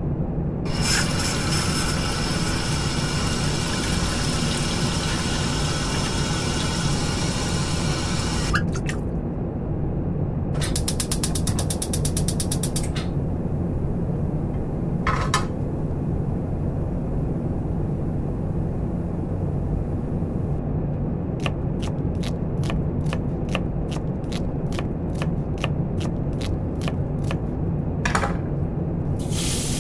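A steady low mechanical hum, with a hiss over the first part and then runs of sharp clicks: first a short rapid rattle, later a long series of evenly spaced clicks at about three a second.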